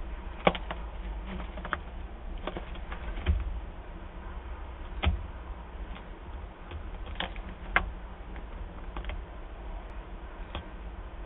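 Peregrine falcon tearing and pecking at cached prey: irregular sharp clicks and taps from her beak working the carcass, about a dozen scattered through, over a steady low rumble.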